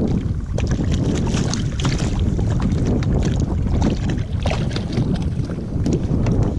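Steady low wind rumble on the action-camera microphone, with water against a kayak hull and scattered small knocks and clicks of gear being handled.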